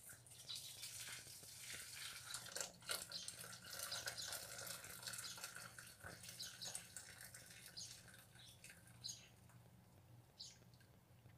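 Hot palm sugar syrup poured from a stainless steel pot through a fine mesh strainer into a steel pot below: a faint, steady splashing pour that thins out over the last few seconds as the pot empties, with a few light ticks near the end.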